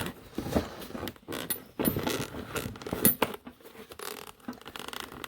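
US General tool cart being opened one-handed and its contents handled: a run of clicks, knocks and short metallic rattles.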